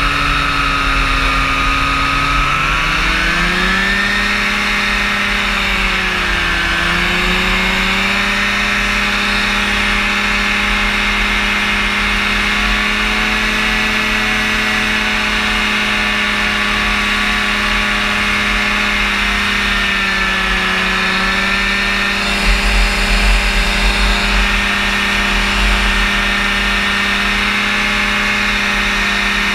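Rotax engine and propeller of a powered parachute droning in flight. The engine speed rises a few seconds in, dips briefly, then holds steady, with another slight dip about two-thirds of the way through.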